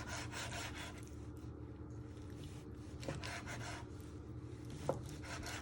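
Kitchen knife cutting raw chicken breast on a chopping board: faint, repeated cutting strokes, with two sharper taps of the blade on the board in the second half.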